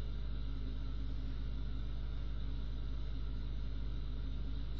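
Steady low hum, with a few faint steady tones over it, running evenly without change.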